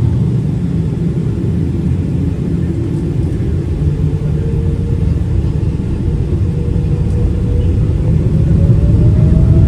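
Cabin noise inside a Boeing 777: a loud, steady low rumble of the jet engines and airframe, with a faint tone that rises in pitch near the end as the sound grows louder.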